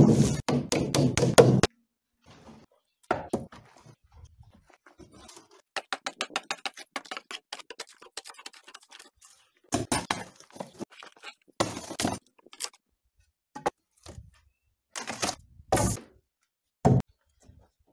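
A hammer beating rapidly on a concrete-crusted wooden board, knocking the dried concrete off. After a pause come scattered knocks on wood, a quick run of light taps, and several loud thuds near the end.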